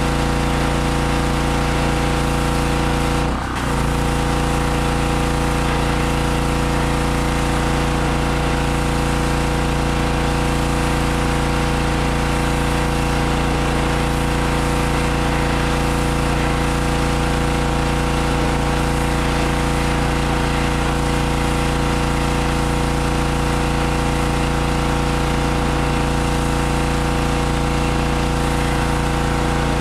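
Gas pressure washer's 4 HP 160cc single-cylinder engine running steadily at a constant speed, with a hiss over it and one brief dip in the sound about three and a half seconds in.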